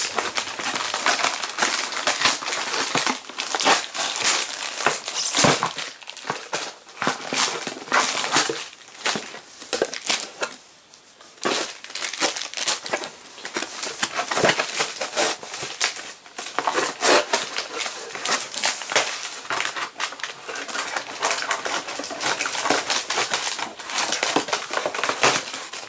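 Packaging being crumpled and rustled by hand: dense, irregular crinkling and crackling, with a brief lull about eleven seconds in.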